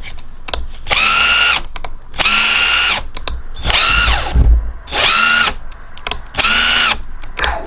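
Cordless impact driver triggered in free air, running unloaded without impacting: about five short bursts, each spinning up to a steady whine and winding down. The motor runs smooth.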